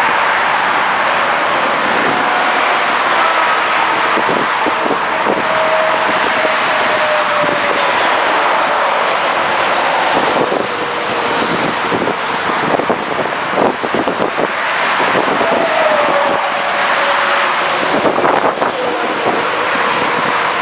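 Steady, loud noise of highway traffic going past, with engine tones sliding down in pitch as vehicles pass by; it gets rougher and more uneven about halfway through.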